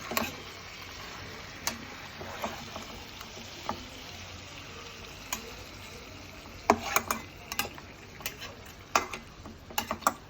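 Marinated chicken frying in a pan with a steady sizzle. Scattered sharp clicks and knocks sound over it, most of them in the second half.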